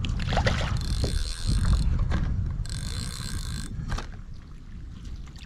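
Fishing reel cranked in two short bursts of about a second each, a fast ticking whir of its gears, as a small hooked sheepshead is reeled in.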